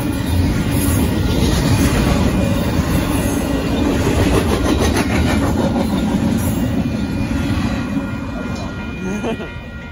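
Union Pacific intermodal freight cars rolling past at speed: a loud, heavy rumble with wheel clicks over the rail joints. It fades over the last two seconds as the end of the train clears the crossing, leaving the crossing signal's bell ringing.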